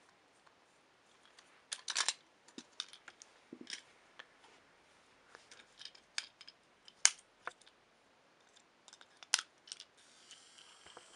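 Small clicks and scrapes of a screwdriver and a plastic battery cover as batteries are fitted into a TrackMaster toy engine, with a few sharper clicks scattered through. About ten seconds in, the toy's small battery motor switches on with a faint steady whir.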